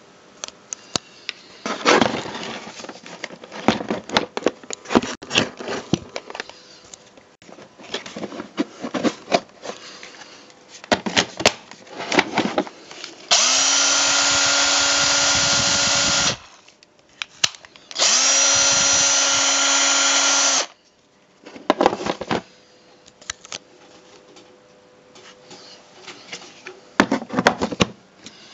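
Ryobi CDD1201 12 V cordless drill driver run twice at a steady speed, each burst about three seconds long with an even motor whine. Before and after the runs come scattered clicks and knocks from the tool being handled.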